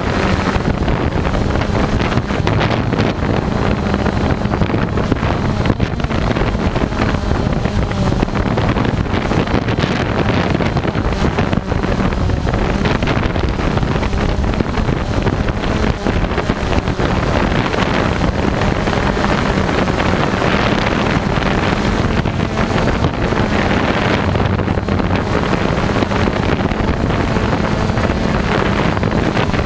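Blade 350 QX2 quadcopter's brushless motors and propellers running steadily with a constant hum, heard from the onboard GoPro, with wind rushing over the camera's microphone.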